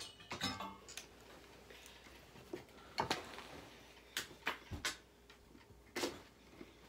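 A handful of separate light clicks and knocks, spread unevenly over several seconds, over a quiet room background.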